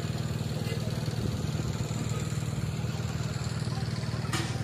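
Small engine idling steadily with a fast, even pulse, and a couple of sharp clicks near the end.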